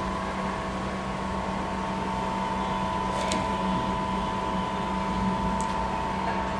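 A steady machine hum with several constant tones, broken by two faint clicks, one about halfway through and one near the end.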